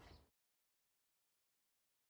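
Silence: a faint tail of noise dies away within the first moment, then the sound track is completely dead.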